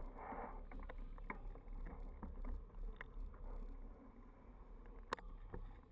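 Faint low rumble of a moving, handled camera, with scattered light clicks and knocks.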